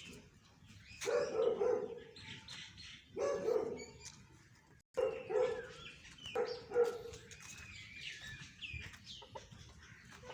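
A dog barking in four loud bouts, with small birds chirping faintly in the background.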